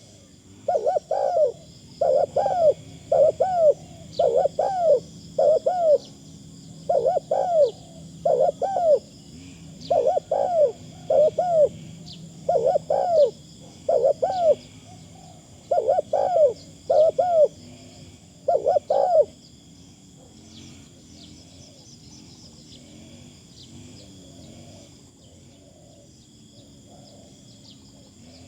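A caged decoy spotted dove cooing, its coos coming in repeated phrases of two or three notes, then falling silent about two-thirds of the way through. A faint, steady high chirring of insects or distant birds runs underneath.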